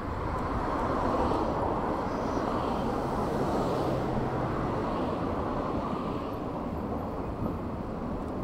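Steady rushing of wind on the microphone mixed with tyre and road noise from a bicycle coasting downhill.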